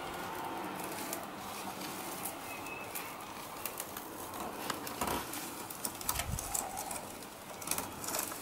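Light rustling and small clicks and knocks of an artificial wreath being handled and hung on an adhesive hook on a front door. A bird calls faintly in the background.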